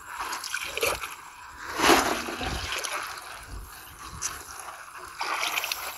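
Bare feet wading and stirring in shallow muddy water, splashing irregularly, with the loudest splash about two seconds in.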